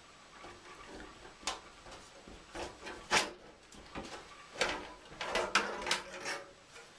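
Knocks, clicks and scrapes of a small metal PC case being handled and moved on a surface, with the loudest knocks about three seconds in and a cluster near the end.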